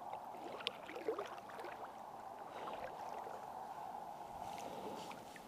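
A kayak being paddled slowly: faint paddle strokes and water moving along the hull, with a couple of light knocks about a second in.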